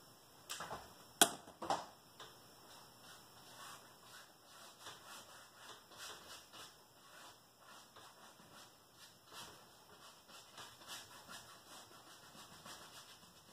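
Paint being scrubbed and dabbed onto a stretched canvas in quick, faint rubbing strokes. A few sharp clicks come near the start, the loudest about a second in.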